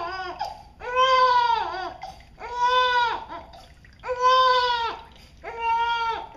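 Newborn baby crying in a string of wails, four in all, each about a second long with short breaks for breath, distressed at being washed in his first bath.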